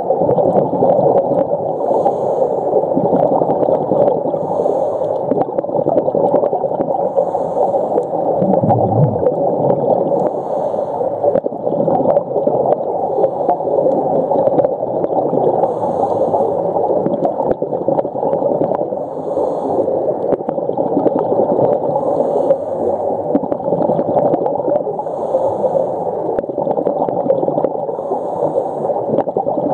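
Muffled underwater water noise: a steady gurgling wash of water around the submerged camera.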